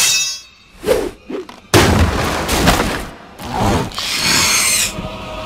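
Film sound effects: a sharp metallic strike with a falling ring, like the Predator's wrist blades, then a sudden heavy crash about two seconds in with more impacts. Near the end comes a high hiss from the xenomorph.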